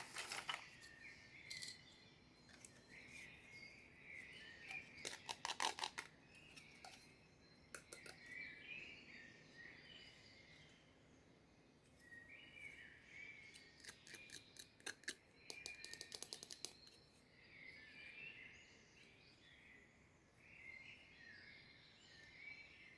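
Faint, scattered clicks and crinkles of small plastic toy pieces and their packaging being handled, with two short clusters of rapid clicking.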